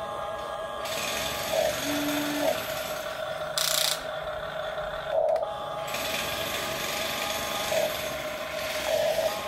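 Huina remote-control toy excavator's small electric gear motors whining as the turret swings and the boom and bucket arm move, in several runs that start and stop. A short hiss comes about three and a half seconds in.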